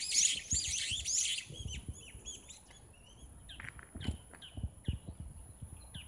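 Small birds chirping, a dense chorus of short chirps for the first second and a half, then scattered single chirps. Footsteps on a paved path thud underneath, about two a second.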